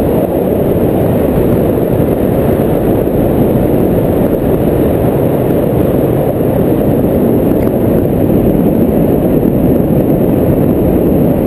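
Steady airflow buffeting the microphone in paraglider flight: a loud, even low rumble of wind noise that does not change.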